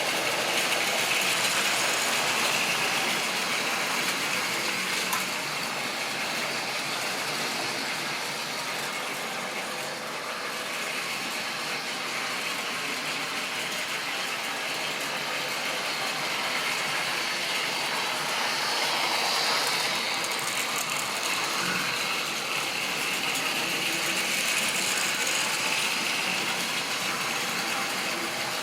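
Model railway train running on its track, with a steady mechanical rattle of the locomotive's motor and gearing and the wheels on the rails.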